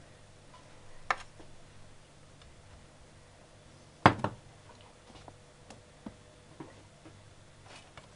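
Scattered light clicks and knocks of kitchen handling as a saucepan of glaze and its spoon are moved about on a ceramic hob. There is one click about a second in and a sharp knock about four seconds in, over a steady low hum.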